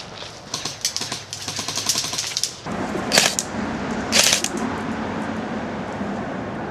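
Airsoft guns firing: about two seconds of rapid clicking shots, then two short, loud bursts of fire about a second apart.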